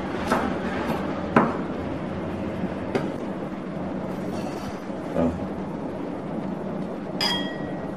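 Chef's knife chopping minced paederia (lá mơ) leaves on a wooden cutting board: a few sharp chops in the first three seconds. Then a dull thump about five seconds in and a ringing clink of a ceramic bowl near the end as the leaves are gathered into it.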